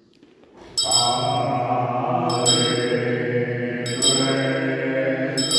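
A group of auroros, men's voices, singing a slow unaccompanied aurora chant, starting about three-quarters of a second in after a brief hush. A small auroros handbell is struck about every second and a half, four times.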